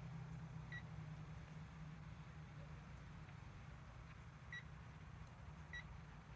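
Three short, high electronic beeps from a digital torque gauge as its buttons are pressed to reset and save a reading: one a little under a second in, two more about a second apart later. A low steady hum runs underneath.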